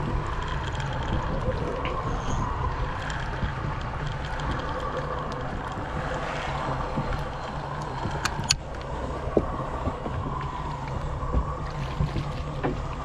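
Boat sounds on the water: a steady low rumble with a faint steady hum, and wind on the microphone. A sharp knock about eight and a half seconds in.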